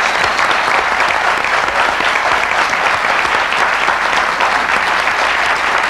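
Talk-show studio audience applauding, a dense, steady clapping.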